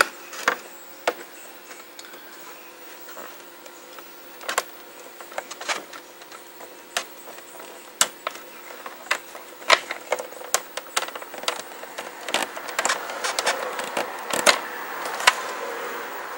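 Cables and plastic plugs of a computer diagnostic harness being handled and fitted, giving irregular clicks and knocks that come thicker in the second half, over a faint steady hum.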